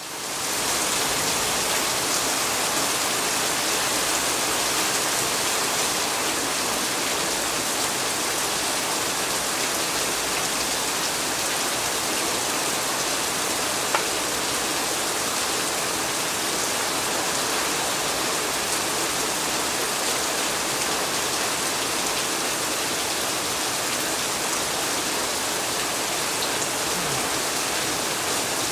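Heavy rain falling steadily, a dense even hiss of rain on surfaces. A single sharp tap about halfway through.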